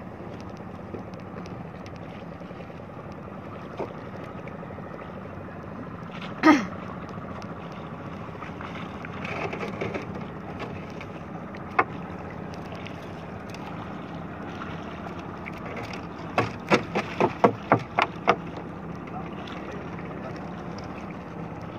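A boat engine drones steadily under wind and water noise while a gill net is hauled by hand over the side of a small wooden boat. About six seconds in there is one brief loud sound falling in pitch, and near the end a quick run of about eight sharp knocks.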